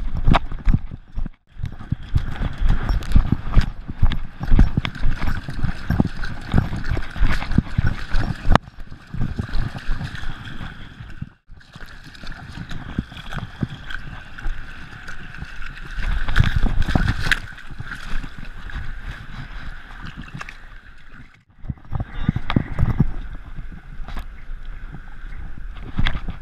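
A Gordon Setter running with a GoPro on her collar: a fast, irregular pounding of her paws and the knocking and rattling of the camera against her, with splashing as she runs through shallow surf. The sound cuts out briefly three times.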